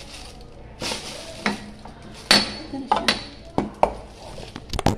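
Kitchen utensils and dishes being handled on a counter: a string of irregular sharp knocks and clinks, some with a short metallic ring, the loudest a little past halfway.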